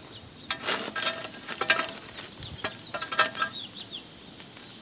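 Light clicks and clinks of small metal hardware being handled, with a few brief ringing tones, while a spacer and washers are worked loose under the motorcycle's skid plate.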